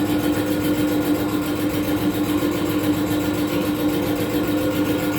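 A machine running steadily with a constant, unchanging hum.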